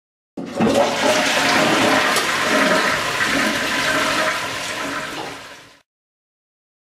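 Toilet flushing: a rush of water that starts suddenly, runs about five seconds and fades out near the end.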